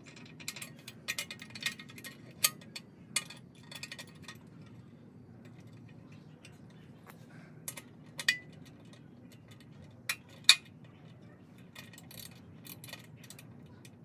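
Small metal hardware clicking and clinking against metal mounting plates and a motorcycle rear carrier as bolts and plates are fitted by hand. A quick cluster of taps comes first, then a few single sharp clicks, over a steady low hum.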